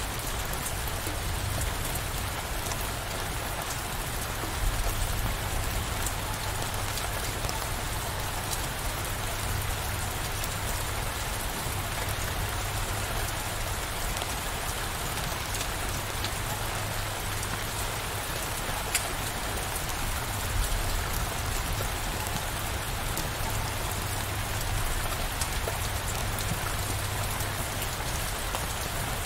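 Steady rain falling, with single drops ticking through the hiss and a low rumble underneath that swells briefly twice, about five seconds in and about twenty seconds in.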